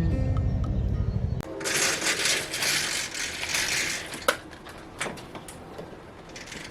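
Background music with plucked strings stops about a second and a half in. A burst of rustling, scraping noise follows for about two seconds, then a couple of sharp clicks and a shorter rustle near the end.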